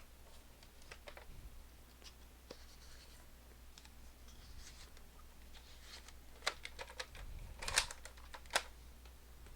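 Plastic clicks and scraping as toy foam-dart blasters are handled, with a few sharper clicks in the second half.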